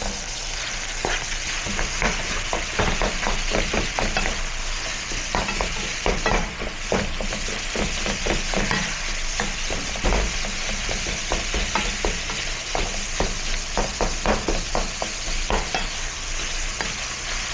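Meat sizzling in a frying pan while a utensil stirs it, scraping and clacking against the pan many times over the steady sizzle.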